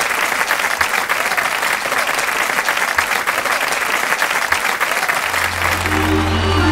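Audience applauding, a dense steady clapping. About five seconds in, a low bass note and then other instruments start up under the clapping.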